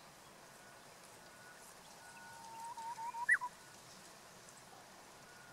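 Japanese bush warbler singing one song phrase: a long low whistle that wavers and steps upward, ending in a quick upward flick about three seconds in. It is a clumsy take on the usual 'hoo-hokekyo', which the uploader takes for a poorly sung song.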